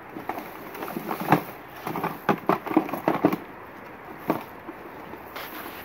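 Hands rummaging through a drawer of small cardboard boxes and plastic bags: a quick run of knocks, clicks and crinkles over the first three seconds or so, and one more knock about four seconds in.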